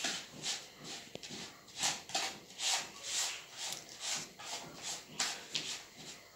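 A hand mixing a crumbly millet, sugar and melted-butter mixture in a plastic bowl: repeated rustling, rubbing strokes, about two a second and uneven.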